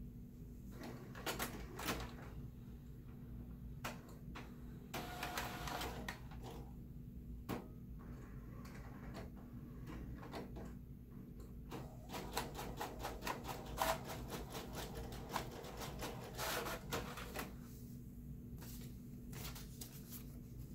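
HP Photosmart 7960 inkjet printer feeding and printing an envelope: a string of clicks and short mechanical whirring runs, busiest about five seconds in and again for several seconds past the middle.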